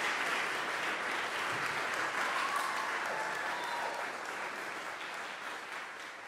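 Audience applauding in a hall, the clapping dying away over the last few seconds.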